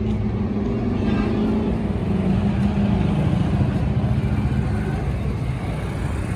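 An engine running steadily, a low hum over a rumble. The hum eases off about five seconds in.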